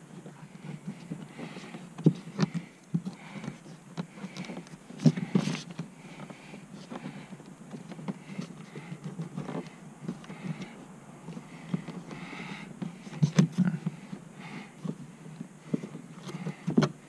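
Scattered plastic clicks and taps as push-in trim clips are worked loose from a car's interior panel with a plastic trim clip tool, with a few sharper knocks among them.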